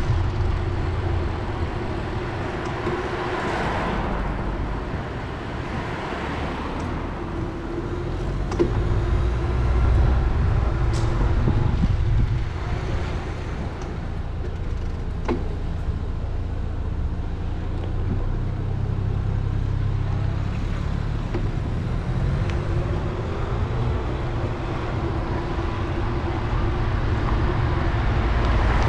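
Street traffic heard from a moving bicycle: car engines and tyres under a steady low rumble, with a few sharp clicks around the middle.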